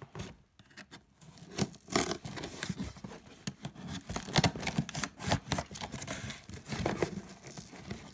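Folding knife blade slicing through packing tape along the seam of a cardboard box, in irregular scraping and tearing strokes that start about a second and a half in.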